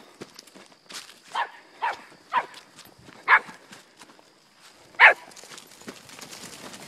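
Pumi puppy yapping while herding sheep: five short, high barks spread over about four seconds, the last one the loudest, over faint ticks and rustles of movement through the grass.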